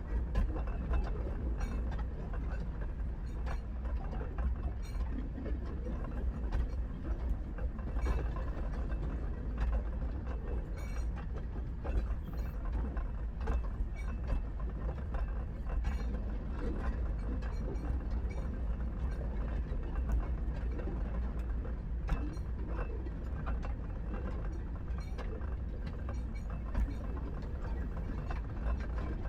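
Narrow-gauge train running, with irregular mechanical clicks and clatter over a steady low rumble.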